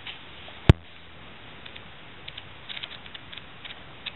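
Paper manuals and packaging being handled: one sharp knock a little under a second in, then faint, irregular crackling ticks.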